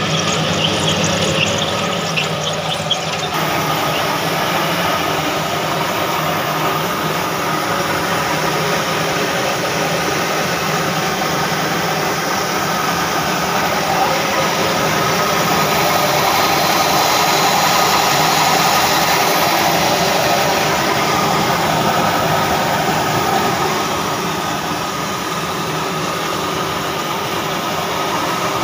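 Village flour mill (aata chakki) and its grain-cleaning sieve running steadily, driven by an old diesel engine: a dense, continuous mechanical noise that grows fuller about three seconds in.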